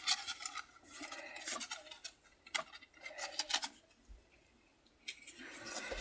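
Rustling and scratching of toddler clothes and their packaging being handled, in short bursts, with a pause of about a second past the middle.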